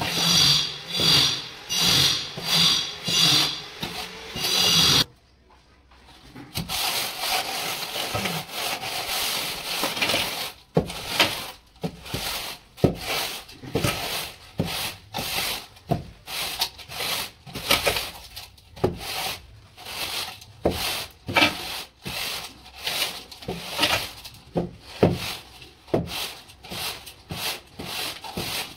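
A straightedge scraped back and forth across a damp mortar bed, screeding it level for floor tiles: a steady rhythm of about one and a half strokes a second, then after a short pause, shorter uneven strokes with sharp taps.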